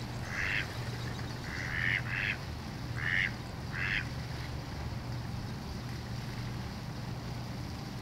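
A duck calling: five short calls in quick succession, the last about four seconds in, over a low steady background hum.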